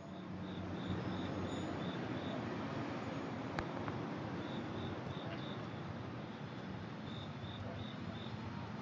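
An insect chirping in three short series of quick high chirps, about five a second, over a steady background hiss.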